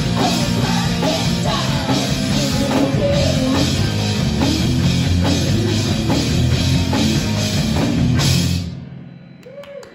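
Live punk rock band playing loud: electric guitars, bass and a drum kit, with a woman singing over them. The song stops abruptly about eight and a half seconds in, leaving a low amplifier hum.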